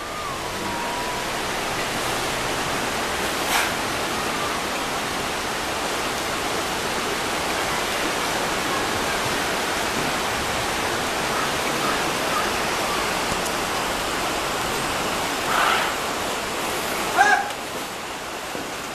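Shallow river water rushing over rocks, a steady even rush with no let-up. A single click sounds about three and a half seconds in, and a short pitched call comes near the end.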